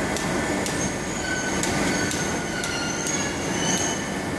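Steady workshop background noise with scattered light clicks, as clear polycarbonate lenses are handled on a wire rack at a metal bench. Short thin high squeaks come and go throughout.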